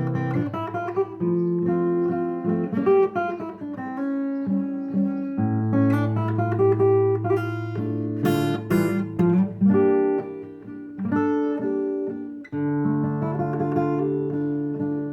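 Solo acoustic guitar playing a waltz: plucked bass notes held under picked chords and melody, with a few brighter strummed strokes.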